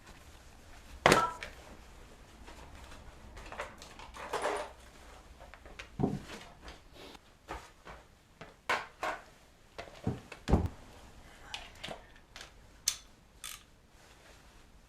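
Tools and metal parts being handled: irregular clinks, clicks and knocks, the loudest a sharp knock about a second in and another about ten and a half seconds in.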